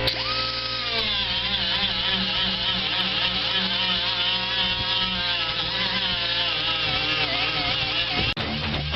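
A grinder grinding down fresh welds on a steel patch panel, its pitch rising as it spins up and then wavering up and down as the pressure on it varies. Near the end it cuts off suddenly and guitar music starts.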